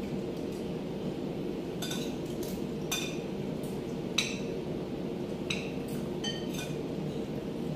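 Metal spoons and forks clinking against plates while eating: about six separate short ringing clinks, the loudest about four seconds in, over a steady low hum.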